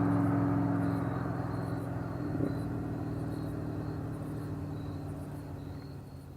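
Muscle car's V8 engine running at a steady pitch as the car drives away, fading steadily into the distance.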